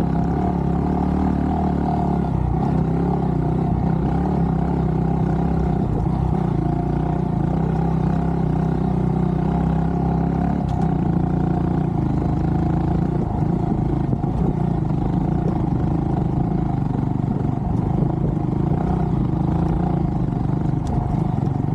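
Honda Monkey 125's single-cylinder four-stroke engine idling steadily, with an even, unchanging note.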